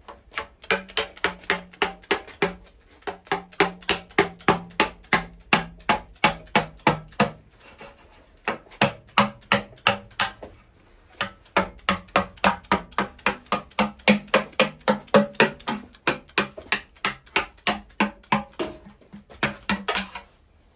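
Mallet tapping a gasket scraper, driving its blade into the sealant seam between a Mazda FD3S RX-7 13B rotary engine's steel oil pan and block to break the seal, about three quick taps a second, each with a short low ring. The tapping pauses briefly twice as the scraper is shifted along the edge.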